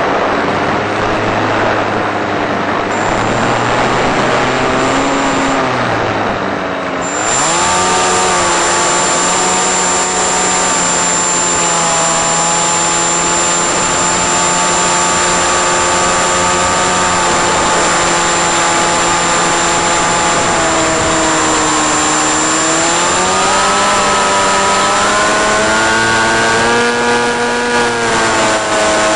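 Electric motor and propeller of a 1.5 m Eagle Wing RC plane in flight, a continuous whine whose pitch wavers, steadies, then dips and climbs again as the throttle is opened about three-quarters of the way through. A thin, steady high whistle sits over it from about a quarter of the way in.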